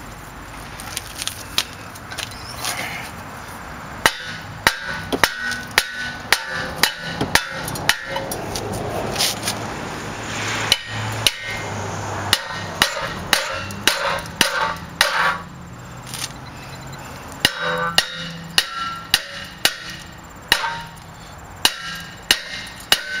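Hammer blows on a cast-iron rear brake rotor of a 2005 VW Touareg, knocking it to free it from the hub where it is stuck fast. Sharp metallic strikes that ring briefly, a few at first, then dozens in irregular clusters from about four seconds in.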